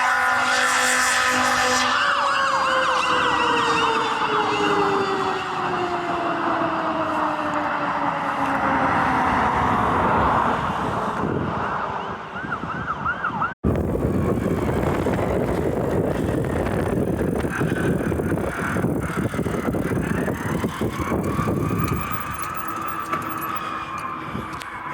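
Fire apparatus sirens and air horn. An air horn blares in the first two seconds, and a siren's pitch falls slowly for about ten seconds under a fast electronic yelp. After a sudden cut, truck engine and road noise carry on under a slow siren wail that rises and falls.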